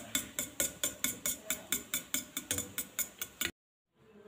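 Eggs being beaten in a steel bowl: a utensil clinking against the bowl's side in a quick, even rhythm of about four to five strokes a second, cutting off abruptly about three and a half seconds in.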